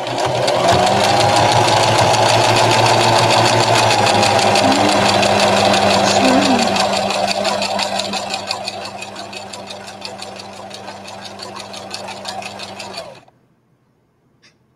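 Electric sewing machine sewing a straight stitch along a folded jersey-knit hem: rapid needle chatter over a steady motor hum, with a whine rising as it speeds up at the start. It grows quieter after about seven seconds and stops abruptly a second or so before the end.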